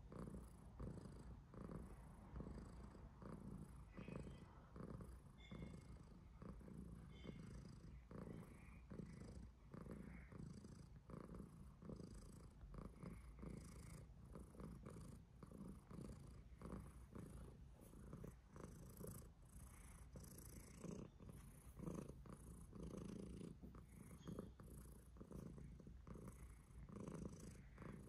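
Domestic long-haired tabby cat purring softly and steadily, the purr swelling and fading in an even rhythm about twice a second with its breathing.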